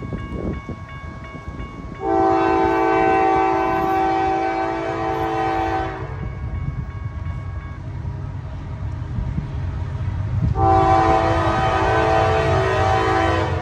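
A freight train's locomotive horn, a multi-note chord, sounds two long blasts for a grade crossing, each about four seconds, with a pause of several seconds between them. A low rumble of the approaching train runs underneath.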